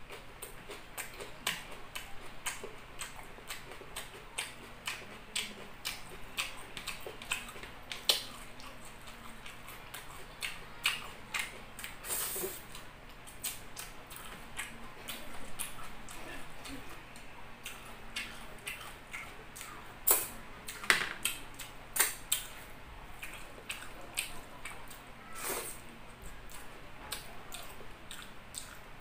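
Close-miked mouth sounds of a person eating chicken liver adobo and rice by hand: wet chewing, lip smacks and finger sucking. They come as an irregular run of sharp clicks, with a louder smack now and then.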